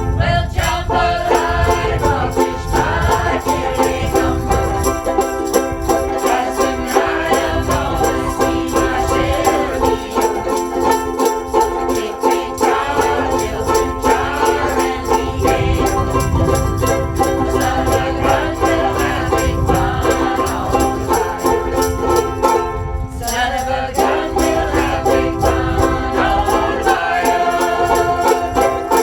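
A ukulele group playing a song, strummed ukuleles with several voices singing along; the music breaks off briefly about 23 seconds in, then carries on.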